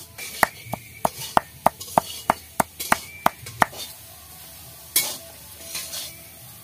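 Garlic cloves being crushed on a flat stone grinding slab with a hand-held grinding stone: sharp knocks about three a second, stopping a little past halfway. Then a metal spatula stirring boiled bottle gourd leaves in a wok, with a brief scrape about five seconds in.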